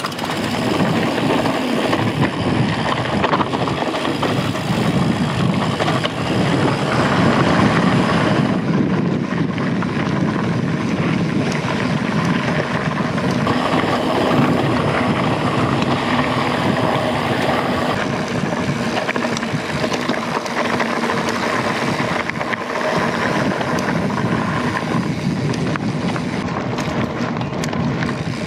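Steady rushing wind noise on a bike-mounted action camera, mixed with the rolling noise of a mountain bike ridden along a dirt trail.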